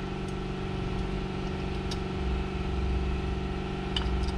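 Steady machine hum running in the background, with a low rumble swelling about halfway through. A few faint light clicks come from small metal engine parts being handled.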